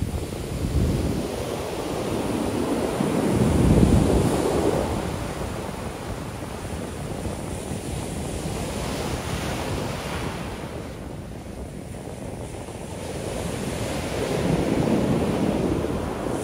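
Ocean shore break: waves crashing and washing up the sand. The loudest crash comes about four seconds in, and another swells up near the end.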